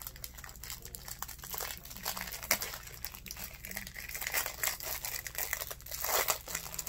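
Clear plastic wrapping crinkling and crackling irregularly as hands pull it open, with a denser burst of crinkling near the end.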